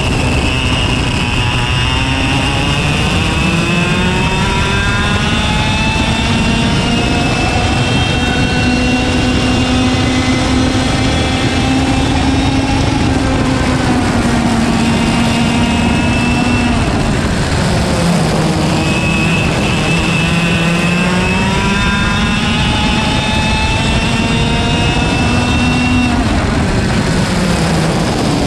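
Single-speed KA100 two-stroke kart engine, heard from onboard, revving up through its range, holding high and dropping off twice as the kart brakes for corners, over a steady rush of wind and road noise.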